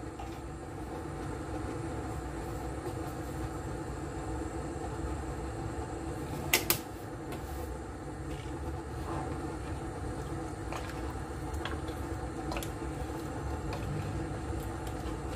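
Pot of peanut sauce simmering on an induction cooktop under a steady fan-like hum, with a sharp click about six and a half seconds in and a few light ladle knocks near the end as the stew is stirred.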